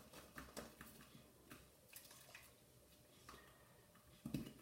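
Faint, scattered clicks and ticks of a cap being closed on a small glass bottle, with a slightly louder soft bump near the end.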